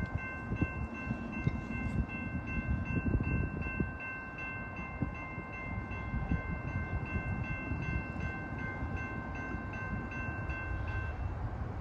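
Railroad grade-crossing warning bell ringing in an even rhythm of about two strokes a second, stopping shortly before the end, over a steady low rumble.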